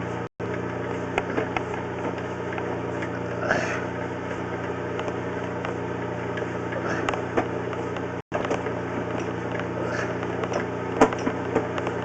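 An engine running steadily at idle, a low even hum, with scattered light clicks and knocks over it. The sound cuts out completely for a moment twice, once right at the start and once about eight seconds in.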